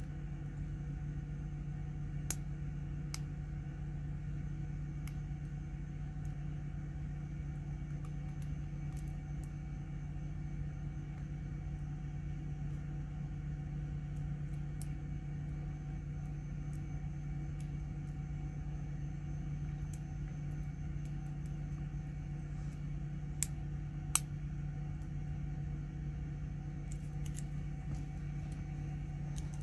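Faint, scattered metallic clicks of a hook pick and tension wrench working the pins inside a brass padlock, with a sharper pair of clicks about two-thirds of the way through, over a steady low hum.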